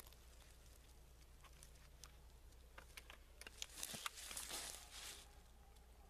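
Faint footsteps and rustling in dry, frosty grass as a person walks past. Scattered light ticks, with a short cluster of rustling about three and a half to five seconds in.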